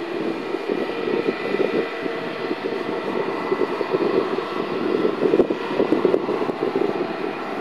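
Jet airliner engines running on the ground as they warm up before taxiing, a steady whine with a few held high tones over a rushing noise.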